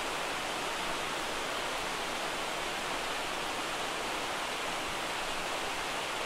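Steady rushing of a mountain river flowing over rocks.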